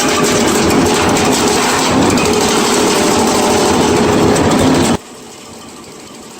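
Loud, steady running of a machine engine, which cuts off abruptly about five seconds in to a much quieter steady engine noise.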